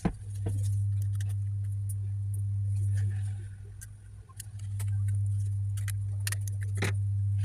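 Small sharp clicks and taps of laptop parts, screws and tools being handled, over a steady low hum that fades and swells again about halfway through.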